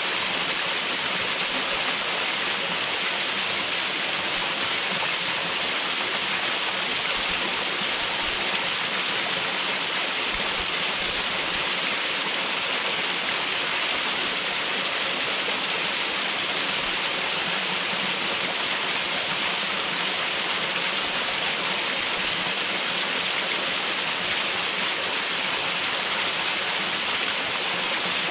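Upper cascade of a waterfall pouring steadily: an even, unbroken rushing hiss of falling water.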